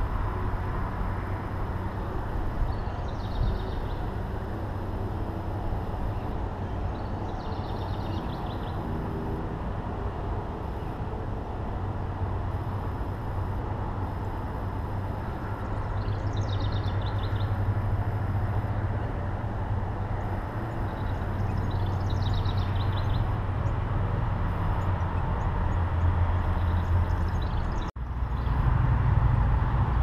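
Steady low outdoor rumble with faint songbird chirps and short trills about five times. The sound drops out for an instant near the end.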